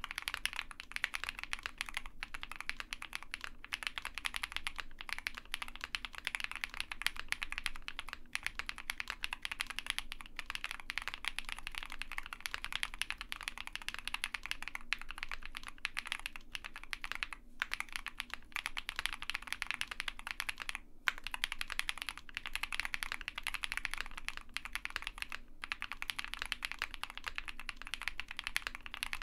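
Continuous fast typing on an OwLab Mr Suit custom mechanical keyboard with lubed Zaku switches, GMK keycaps and a POM plate, all its foam installed. Dense key presses with only a couple of brief breaks.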